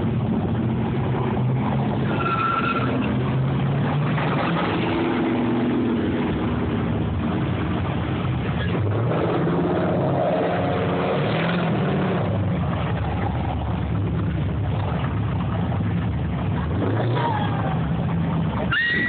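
Car engines running as show cars, including a red Corvette and an old pickup truck, drive through an intersection, a steady mix of engine and traffic noise. A brief high squeal comes about two and a half seconds in and another near the end.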